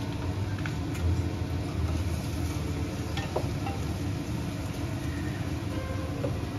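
Steady low rumble of running kitchen appliances, with a few faint clicks of a wooden spoon stirring in an enamel pot.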